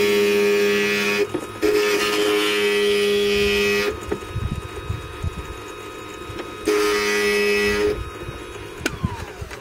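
Glass grinder's diamond bit grinding the edge of a glazed china shard: three stretches of a loud, steady whine with gritty scraping as the piece is pressed to the bit, the motor running lighter with small knocks in between. Near the end the whine slides down in pitch as the motor spins down.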